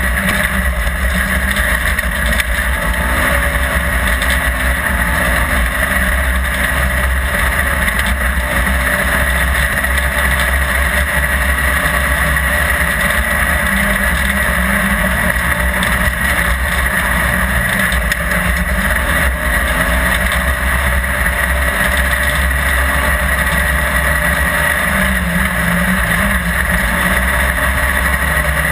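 Polaris side-by-side rally car's engine running hard at speed, heard from an in-car camera, its note rising and falling with the throttle over a steady loud roar.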